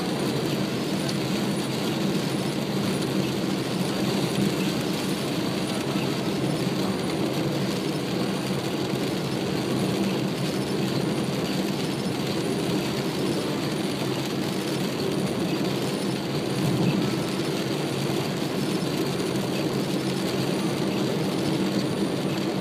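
Steady road noise heard inside a moving car on a rain-soaked road: tyres on the wet surface and engine running, with no clear breaks.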